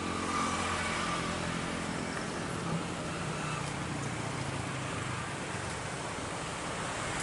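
Distant jet airliner engines running at takeoff power during the takeoff roll: a steady rumbling roar with a hiss, a low hum fading from about the middle on.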